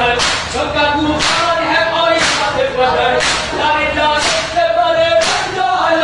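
A group of mourners chanting a noha in unison. A sharp chest-beat (matam) lands about once a second, in time with the chant.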